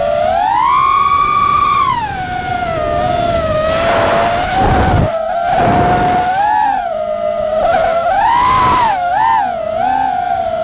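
FPV quadcopter's electric motors whining, the pitch sweeping up and down with throttle, with a rush of air about four seconds in and again near the end.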